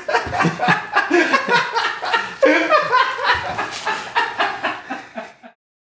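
A man laughing helplessly in a rapid run of short, breathy bursts, with his face buried in his arms. The laughter cuts off suddenly near the end.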